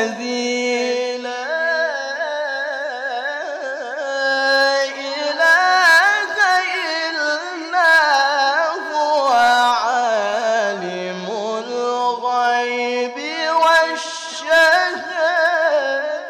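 Solo male Quran recitation (tilawah) in the ornate qari style: long drawn-out melismatic phrases full of rapid trills and wavering turns. The voice sinks to a lower register about ten seconds in, then climbs again.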